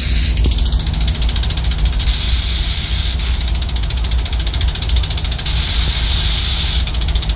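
BNSF diesel freight locomotives running in a rail yard, a steady low engine rumble with a hissing, fast even chatter over it.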